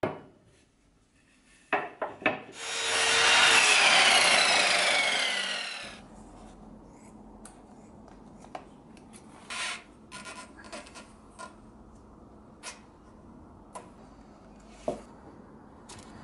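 A power tool runs for about three seconds with a whine that falls in pitch, the loudest sound here. After it come scattered light clicks and short scrapes as rubber strip, tubing and scissors are handled on the workbench.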